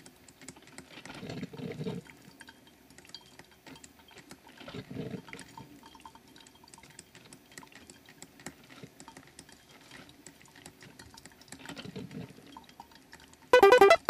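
Coffee brewing: liquid dripping and gurgling in three swells, about a second in, around five seconds and near twelve seconds, with small drips and ticks between. Loud keyboard music cuts in just before the end.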